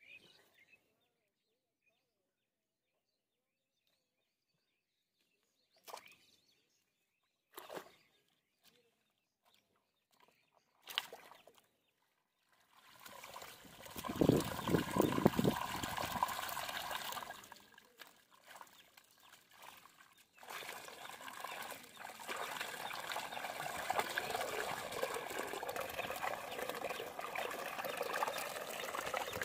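A few short knocks of a metal digging bar in wet mud. Then, about halfway through, pond water starts pouring through a channel cut in the mud bank, splashing loudest at first and then running as a steady trickling flow.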